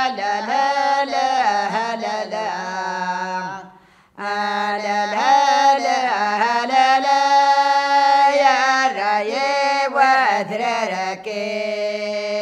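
Kabyle acewwiq chant sung by women without accompaniment: long held notes, ornamented and wavering, each phrase falling away at its end, with a short pause for breath about four seconds in.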